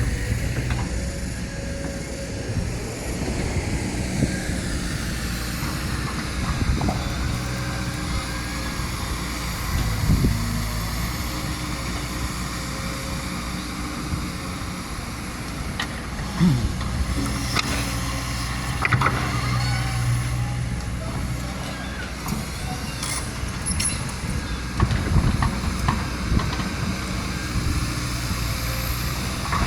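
Kobelco SK200 hydraulic excavator's diesel engine running steadily, with a few knocks and clunks scattered through.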